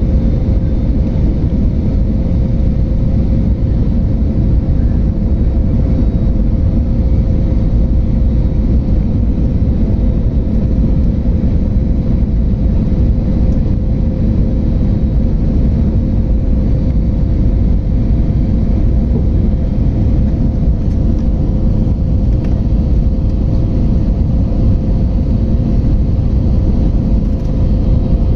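Jet airliner cabin noise in flight: a loud, steady rumble of engines and airflow, with a faint constant tone held through it.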